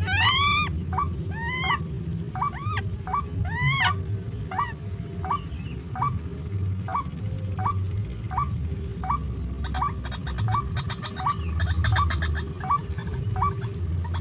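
White-breasted waterhen (ruak-ruak) calls: a short pitched note repeated about twice a second, the early notes arching with overtones and the later ones shorter. A fast high ticking joins in about ten seconds in.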